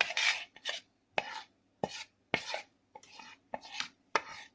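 A spoon clinking and scraping against a bowl as spice powders are tipped in, about eight short strokes at roughly half-second intervals.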